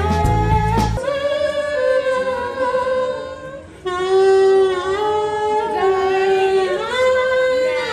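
Background song: a singer holds long, gliding notes. The beat and bass drop out about a second in, leaving the voice almost unaccompanied.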